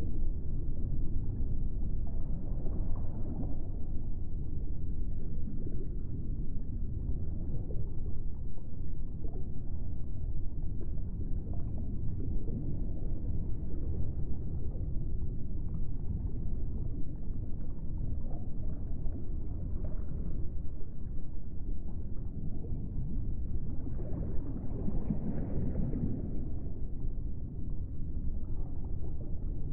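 Deep, steady rumbling ambience with slow swells, an added soundtrack laid under the footage.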